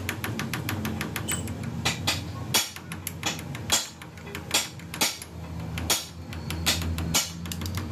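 Stick (arc) welding: the electrode's arc crackling and popping irregularly, a few sharp pops a second over a steady low hum, as weld metal is built up on a crankshaft's damaged thread.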